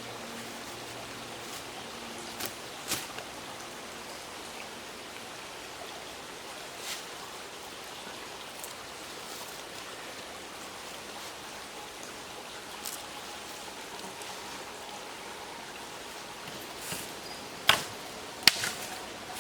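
Steady even hiss of water, with a few sharp clicks and knocks scattered through it, the two loudest close together near the end.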